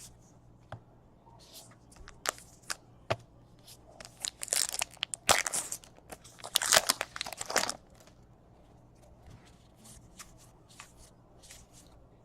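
A trading-card pack wrapper being torn open and crinkled by hand, in several bursts over a few seconds, after a few light clicks from the cards being handled.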